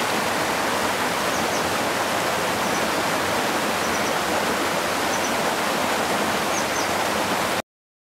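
Rushing mountain stream tumbling over rocks in white-water cascades: a steady, loud rush of water that cuts off suddenly near the end.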